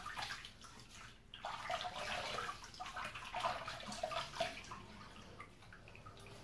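Water splashing at a sink, in irregular bursts that are busiest in the middle and thin out near the end: rinsing off shaving lather after a razor pass.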